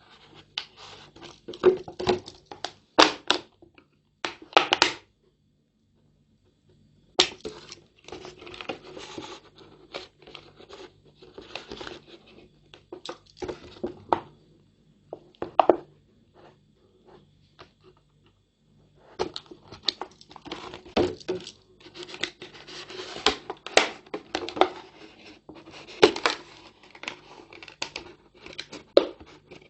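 Scissors cutting through a large plastic soft-drink bottle: irregular snips with the thin plastic crinkling and crackling. The cutting stops for a couple of seconds twice, once about five seconds in and again a little past halfway.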